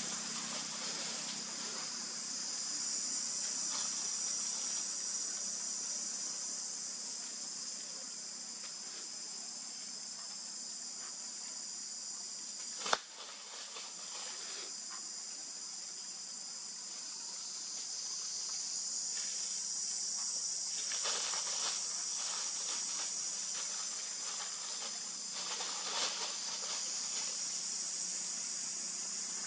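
A steady high-pitched chorus of insects droning throughout, with one sharp click about 13 seconds in and a couple of brief rustling noises later.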